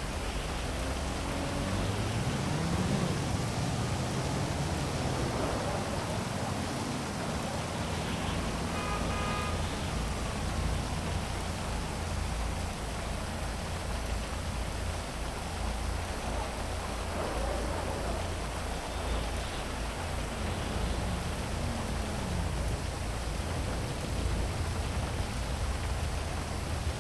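Steady heavy rain with city traffic underneath: several vehicles pass, their engine pitch rising and falling as each goes by.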